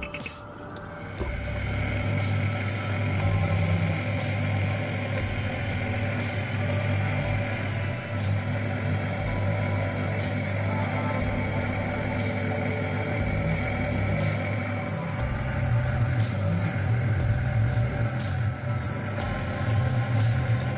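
Countertop blender motor running steadily, grinding herbs and toasted nuts into a thick paste; it starts up about a second in.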